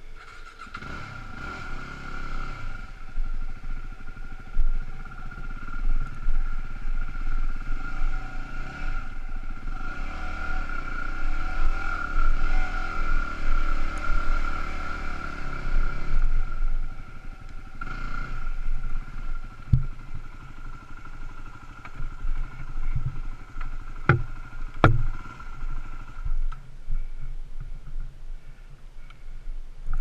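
Dual-sport motorcycle engine running on a rough trail, revving up and easing off, with a few sharp knocks in the second half.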